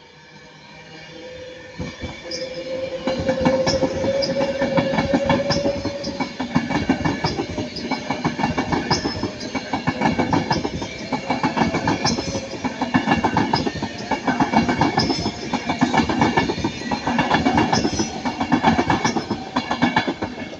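Class 390 Pendolino electric train passing slowly at close range, its wheels clicking rapidly over the rail joints and swelling in level car by car. A whine rises slightly in pitch in the first few seconds, and sharp high cracks come at scattered moments, which fit the pantograph sparking on the overhead wire.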